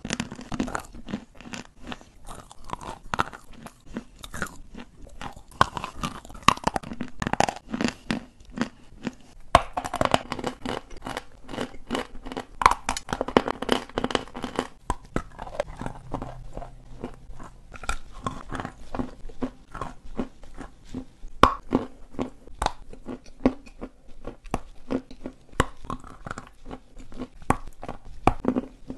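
Chunks of white chalk being bitten and chewed right at a clip-on microphone: a dense run of crisp crunches, one close after another.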